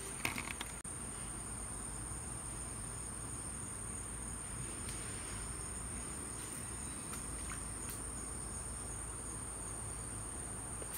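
Steady high-pitched insect chorus, a continuous cricket-like trill, with a few short clicks in the first second.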